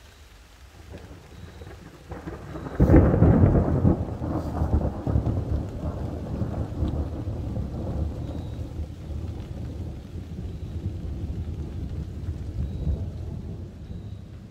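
Thunder: a low rumble builds for a couple of seconds, breaks into a sudden loud clap about three seconds in, then rolls on and slowly fades over the next ten seconds.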